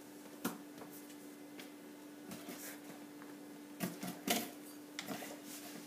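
A few light knocks and taps on a desktop as a cat's paw swats at a hand by the mouse, the loudest two close together about four seconds in, over a steady low hum.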